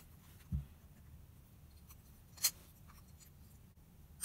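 Mikuni BS34 carburettor being handled and turned over above a wooden bench during reassembly: a dull bump about half a second in, then a single sharp metallic click about two and a half seconds in, with faint rubbing of hands on the metal.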